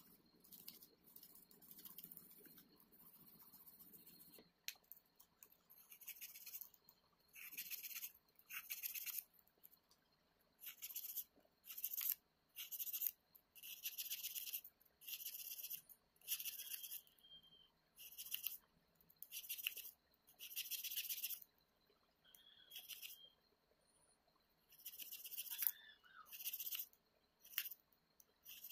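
Cloth rubbing a chrome-plated torch body tube in repeated scrubbing strokes, roughly one a second, each a short hiss, with an occasional brief squeak.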